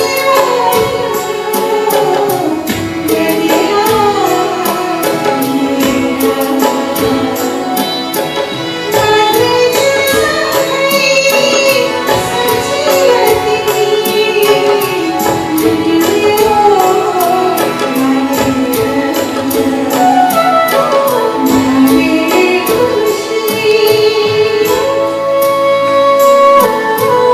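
Nepali song band with violins, flute, accordion, keyboard and hand drums (madal, tabla, dholak) playing a melodic passage with no clear words, over a steady drum beat.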